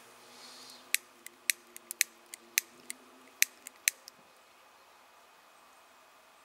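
Freshly lit kindling of damp wood shavings and feather sticks crackling: about a dozen sharp, irregular pops over three seconds, then it goes quiet.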